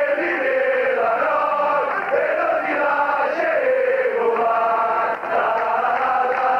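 Football ultras chanting a song in unison: a large crowd of mostly male voices singing a melodic terrace chant.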